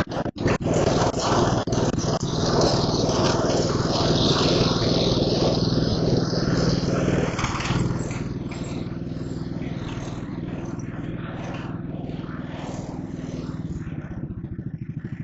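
Engine of an early-1970s Mowett Mustang riding mower running as the mower is driven. It is loud at first, then drops to a quieter, slower run about halfway through, with its firing pulses showing as a steady beat near the end.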